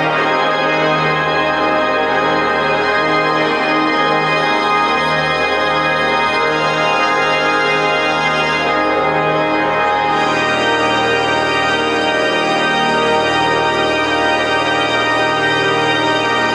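Pipe organ playing loud, sustained full chords, the harmony changing about ten seconds in.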